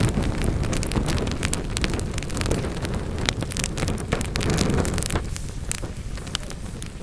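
Wood fire burning in a fireplace: a steady low rush of flames with many sharp crackles and pops from the logs. The rush eases off after about five seconds while the crackling goes on.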